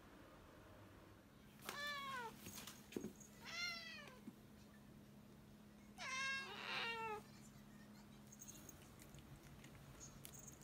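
Domestic cat meowing three times. These are coaxing begging meows for a treat, each drawn out and dropping in pitch at the end, and the third is the longest.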